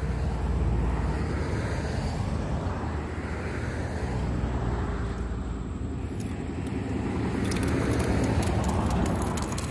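Road traffic passing by: a steady rush of tyres and engines that swells and fades as vehicles go past. Near the end comes a quick run of light clicks from a fishing reel being wound as the rod is raised on a bite.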